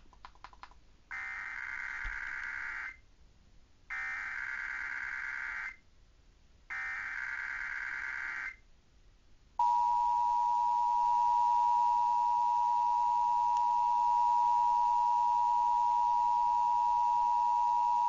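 Emergency Alert System required monthly test tones from a radio. First come three bursts of SAME header data tones, each just under two seconds with about a second between. Then, about ten seconds in, the steady two-tone attention signal (853 and 960 Hz) begins, louder than the bursts.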